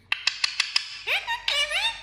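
Ringneck parrot making a quick run of about five sharp clicks, then several short whistled calls that rise and bend in pitch.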